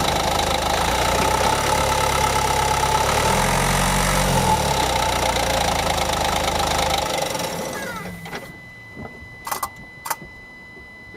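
Ford Focus 1.5-litre engine running steadily, with a short rise in pitch about three to four seconds in, then falling away about seven seconds in. After it a few light knocks. No click is heard from the drive shaft joint being checked.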